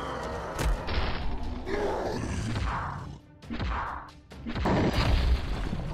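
Cartoon fight sound effects: a series of heavy hits and booms, the loudest low boom near the end, with music underneath.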